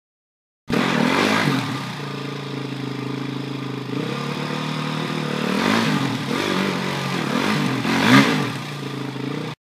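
Small off-road motorcycle engine at low revs as the bike is ridden slowly through deep water, the revs rising and falling in a few blips, the loudest near the end. It starts suddenly about a second in and cuts off sharply.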